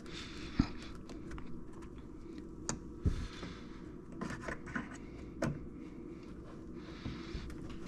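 Scattered small clicks, knocks and scrapes as a tightly seated plastic part in a car's taillight area is wiggled and pried loose by hand.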